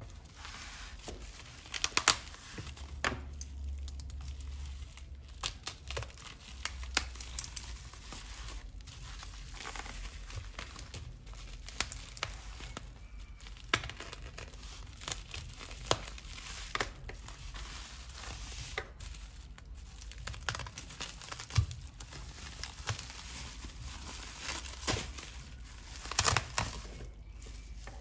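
Bubble wrap crinkling and rustling as it is handled and unwrapped from a phone box, with many sharp crackles; loudest about two seconds in and again near the end.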